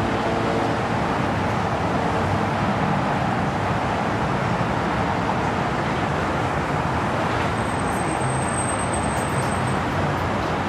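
Twin-engine jet airliner on its landing rollout: a steady, even engine noise with no distinct events. A faint steady whine fades out in the first second.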